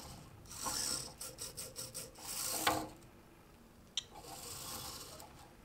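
Petoi Bittle robot dog's small servo motors whirring in three short spells as it moves its legs between poses, with rapid clicking in the first spells and its feet tapping on a wooden tabletop.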